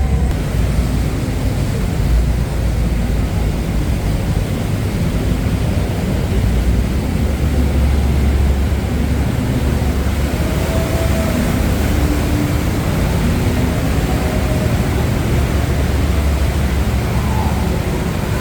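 Steady low rumble and rushing noise aboard a moving river tour boat, from its engine running under way.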